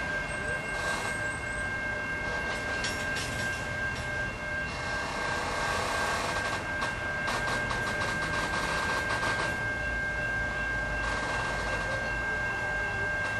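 Stopped CSX freight train with covered hopper cars, standing still: a steady high whine with stretches of hiss that come and go.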